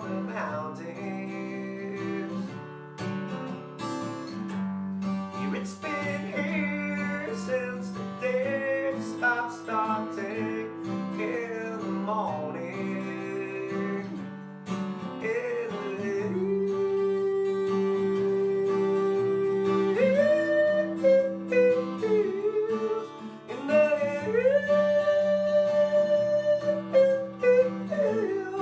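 Acoustic guitar music: steady plucked chords under a melody line that slides between notes, holding two long notes in the second half.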